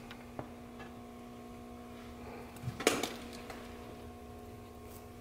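Steady electrical hum with a few faint clicks, and a short knock and rustle of handling about three seconds in.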